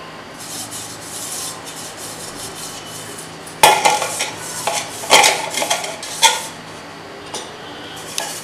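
Fingers rubbing ghee around the inside of an aluminium tube cake pan, a soft rubbing at first. From about three and a half seconds in comes a run of sharp metallic knocks and clatters as the pan is handled.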